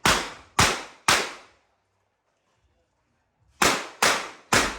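Revolver shots in quick strings, each with a short ringing tail: three shots about half a second apart, a pause of about two and a half seconds, then three more at the same pace.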